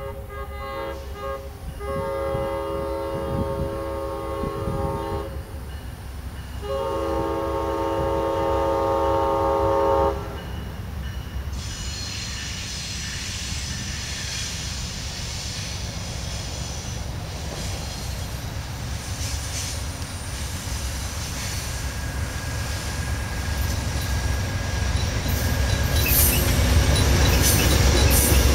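Amtrak passenger train's air horn sounding two long blasts as the train approaches. After the blasts, the rumble and rail noise of the train build steadily, with high ringing and wheel clatter as the GE P42 Genesis diesel locomotives pass close near the end.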